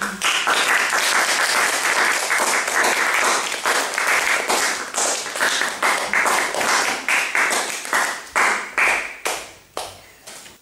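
Audience applauding: dense clapping that thins into a few scattered claps and stops near the end.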